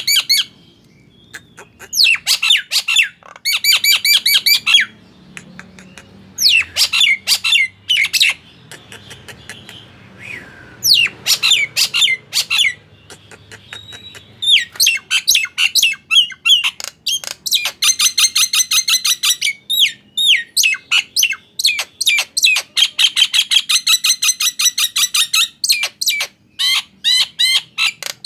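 Nias hill myna singing loudly: fast runs of sharp repeated notes and rattling trills, broken by a couple of short pauses midway.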